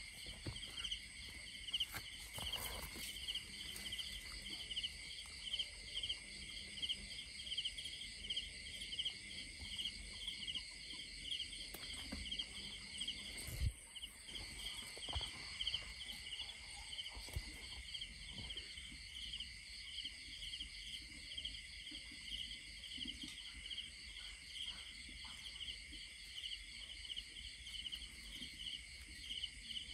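A night chorus of insects: several steady, rapidly pulsing trills at different high pitches, with occasional rustles of dry grass and one knock about halfway through.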